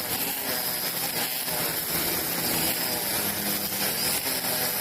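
Petrol brush cutters running steadily at high speed, their line heads cutting grass with a continuous high hiss.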